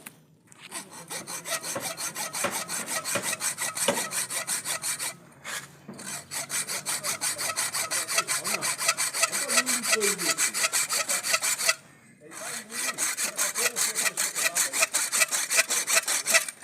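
Hand hacksaw cutting a galvanized iron pipe: rapid, even back-and-forth strokes in three runs, with short pauses about five and twelve seconds in.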